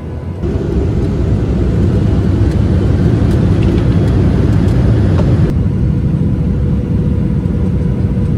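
Jet airliner cabin noise: a loud, steady rumble of engines and rushing air that jumps up sharply about half a second in, with a few light clicks and rattles in the middle.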